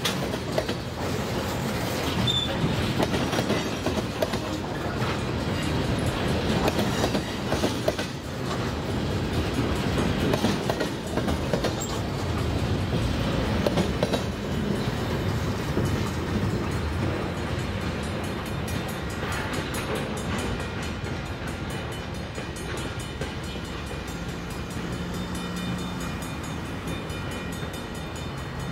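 Loaded ethanol tank cars of a freight train rolling past, their wheels clacking over the rail joints and crossing. The rumble eases over the last several seconds as the end of the train goes by.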